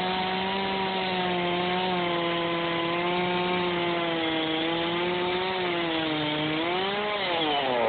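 Chainsaw-powered sawmill cutting through wood, the saw's engine running steadily under load with its pitch wavering slightly. Near the end the pitch rises briefly and then falls away.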